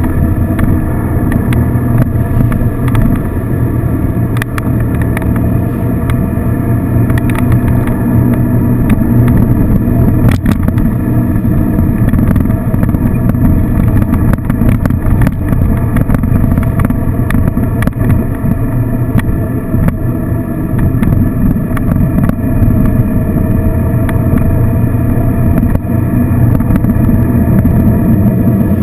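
Touring motorcycle cruising at a steady speed: the engine runs evenly at constant revs under a loud, steady rush of road and wind noise.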